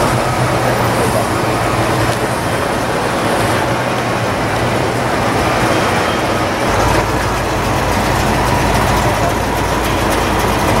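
Classic V8 muscle cars running at a slow parade crawl, a steady low exhaust rumble. About two-thirds of the way in, a deeper, heavier rumble comes in as a red Chevelle SS pulls close.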